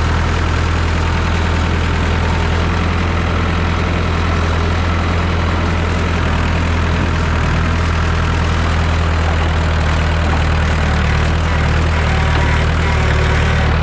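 1969 Massey Ferguson 3165 backhoe tractor's engine running steadily at an even speed.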